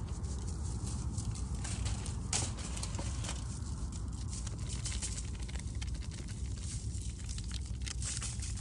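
Crinkling and crackling of a plastic tamarind seasoning packet and the aluminium foil under the fish as the packet is shaken and handled, many small irregular crackles over a steady low rumble.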